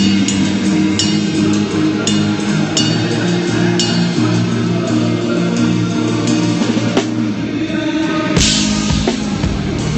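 Rock band playing live at a soundcheck: a drum kit with regular cymbal strikes under held guitar chords, with a louder crash about eight seconds in.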